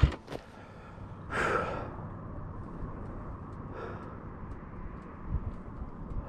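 A person's heavy sigh about a second and a half in, then a softer breath near four seconds, with faint scattered ticks in the background.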